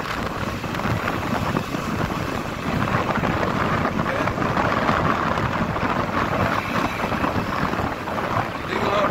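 Wind rushing over the microphone of a phone filming from a moving vehicle, mixed with steady engine and road noise.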